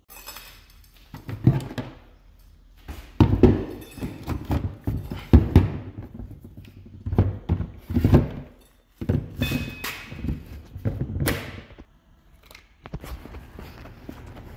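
Several irregular thuds and knocks from gear being handled and set down, spaced a second or two apart.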